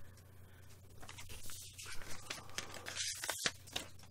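Faint scrapes and rustles of 7-inch vinyl singles and their paper sleeves being handled, as one record is put down and the next is picked out of the pile. The rustling is thickest between about one and four seconds in.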